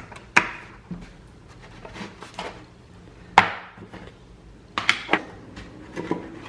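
Kitchenware handled on a countertop: a few separate sharp knocks and clanks with a short ring, the loudest about halfway through and a quick pair later on.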